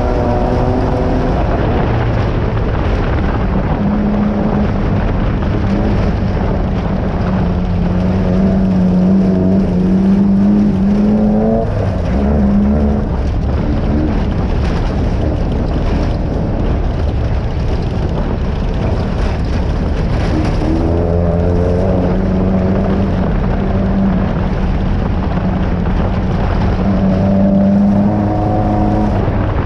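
Desert off-road race car's engine running hard, heard from inside the car over a heavy rushing noise. The engine pitch climbs and drops several times, with brief knocks here and there.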